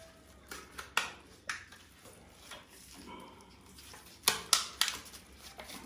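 Scattered sharp knocks and clacks of hard objects being handled, a few light ones in the first second and a louder run of three about four and a half seconds in.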